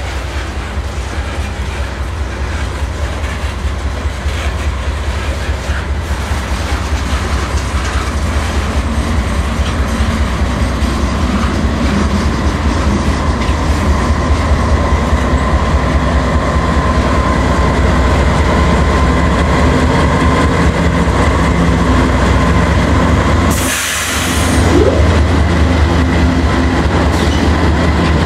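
Loaded coal train of hopper cars rolling past, wheels clacking and a thin steady wheel squeal on the curve. Over it the diesel rumble of a Canadian Pacific GE AC4400CW locomotive working mid-train grows steadily louder as it comes close. A brief break in the rumble comes about three-quarters of the way through.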